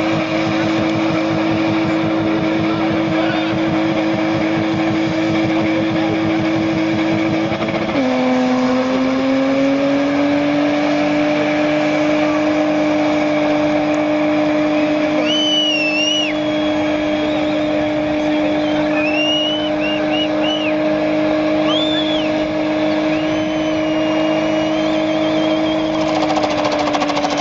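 BMW M50 straight-six engine held at high, steady revs while the rear tyres spin in a burnout. The revs dip sharply about a third of the way in, then climb back and hold steady again, with a few brief high squeals over the top partway through.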